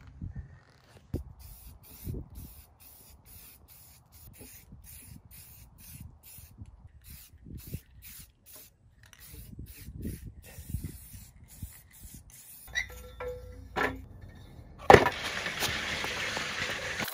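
Short repeated bursts of spray from an aerosol paint can. About 15 s in, a loud clank, then the steel sled scraping along concrete as it is pushed.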